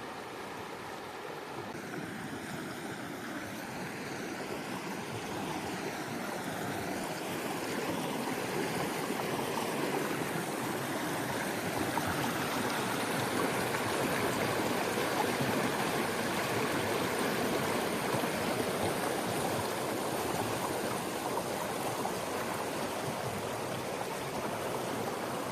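River water flowing steadily, a continuous wash that grows louder toward the middle and eases a little near the end.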